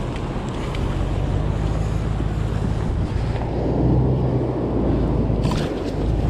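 Wind buffeting the microphone over the wash of surf breaking along the beach, with a few light clicks near the end.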